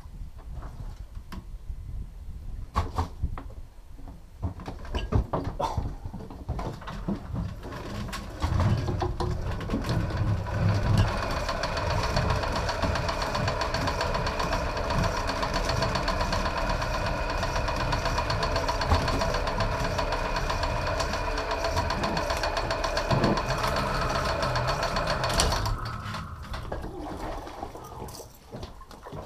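Electric bandit fishing reel's motor winding in line: a steady whine with several even tones that starts about eight seconds in and cuts off a few seconds before the end. Scattered knocks of gear being handled come before it.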